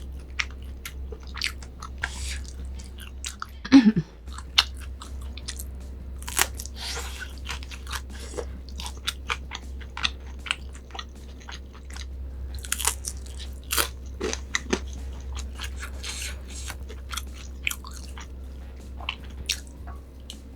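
Close-miked eating: wet chewing, smacking and crunchy bites of food, many short clicks in an uneven run, with a brief louder low sound about four seconds in.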